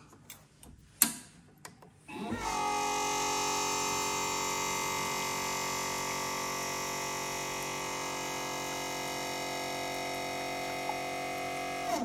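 The Nook mini espresso machine's gear pump runs for about ten seconds, pushing water out of the group head. Its steady whine holds several even tones, rises briefly in pitch as it starts about two seconds in, and stops just before the end. A single click comes about a second in.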